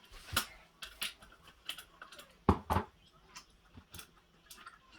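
Scattered light clicks and metal knocks of hand tools at work on a kids' bicycle's rear brake, with two louder knocks in quick succession about two and a half seconds in.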